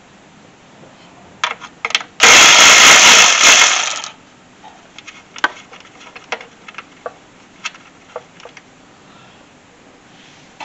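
A power tool runs in one loud burst of about a second and a half, loosening an intake manifold nut. Light clicks and knocks of tools and metal parts being handled come before and after it.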